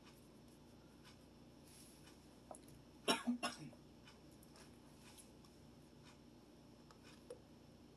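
A person gives a short cough of about three quick bursts, about three seconds in, against quiet room tone with a few faint clicks.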